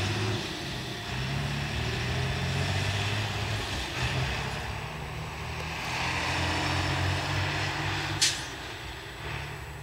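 Low steady diesel rumble as a garbage truck drives over a level crossing and a shunted freight train of container wagons rolls away. A brief sharp hiss of air comes a little after eight seconds in.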